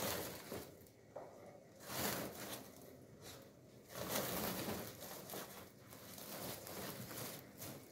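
Thin plastic carrier bag rustling and crinkling in irregular bursts as a pair of shoes is stuffed into it.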